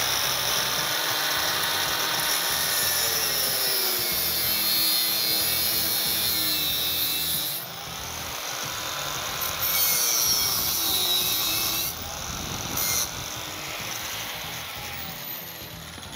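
Rotozip spiral saw fitted with a cut-off wheel, running at a high whine and cutting heavy chrome-plated steel. Its pitch sags as the wheel bites and recovers as it is eased off. The cutting comes and goes as angled cuts are made around the part, and the tool winds down near the end.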